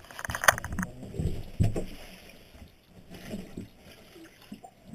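Irregular knocks, bumps and rustling from hands, clothing and gear being worked at an ice-fishing hole on a wooden hut floor, with a run of light clicks in the first second.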